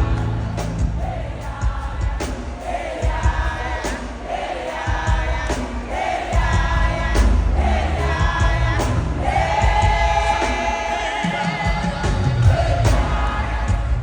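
Live gospel worship music: a choir sings held, sustained lines over a band with drums and a heavy bass.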